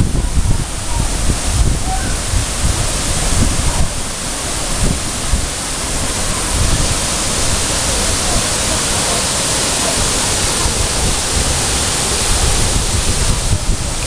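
Tall waterfall plunging into a pool: a loud, steady rush of falling water.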